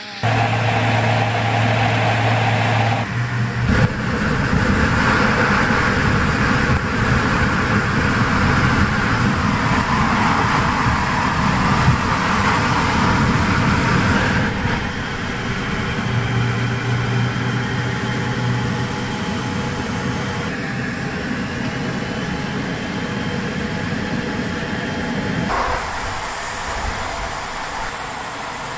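Beriev Be-200 amphibious jet's turbofan engines running, with a loud rush of water along the hull as it skims the sea scooping up water. The sound changes abruptly several times.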